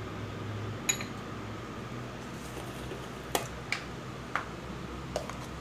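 Light clinks of kitchen utensils on the counter: a short metallic ring about a second in, as of a small steel bowl being set down, then four or five soft taps, over a low room hum.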